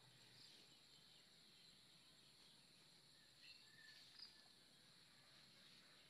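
Near silence: faint outdoor ambience with a steady high hiss and a few brief faint chirps about halfway through.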